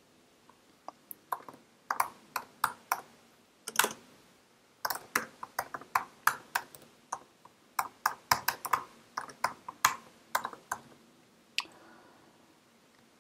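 Typing on a computer keyboard: irregular runs of keystroke clicks, with a short pause about four seconds in, and the typing stops near the end.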